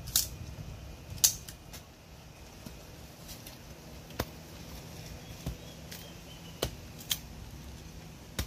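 A handful of sharp, separate knocks a second or more apart: a machete chopping at dry sticks and wood on the ground.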